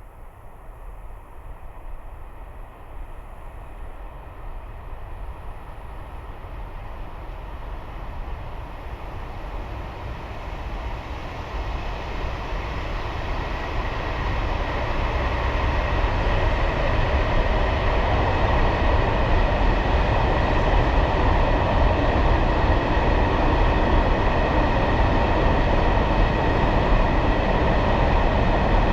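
Freight train approaching, its rumble growing steadily louder for about the first half. It then holds loud and steady as the train rolls past on the rails, with a thin steady whine over the rumble.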